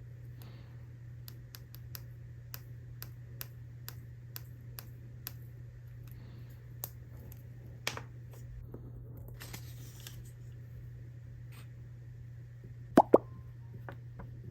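Small plastic stationery items being handled: a run of light clicks and taps, a brief crinkle of packaging about two-thirds in, then two sharp pops in quick succession near the end, like a snap-on lid or case popping. A low steady hum sits underneath.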